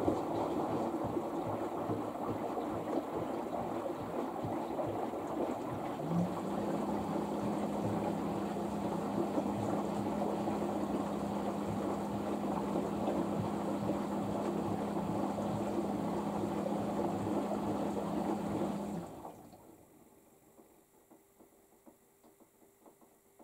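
LG AiDD Steam front-loading washing machine in its rinse, water rushing in. A steady low hum joins about six seconds in, and both stop suddenly a few seconds before the end.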